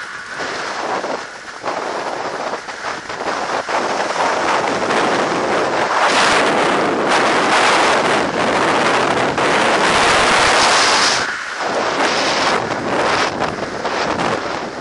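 Storm-force mountain wind in a snowstorm, buffeting the action camera's microphone in strong gusts that swell and ease, loudest from about six to eleven seconds in.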